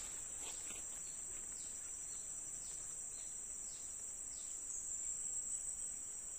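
Steady high-pitched insect chorus (crickets or cicadas) holding one pitch, with a few faint short falling chirps over it.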